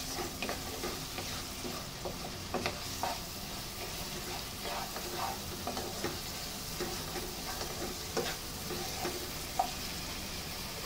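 Wooden spatula stirring and scraping a thick spice paste as it fries in oil in a non-stick pan: a steady sizzle with scattered soft knocks and scrapes of the spatula. The masala is being fried down (bhuna) before the chicken goes in.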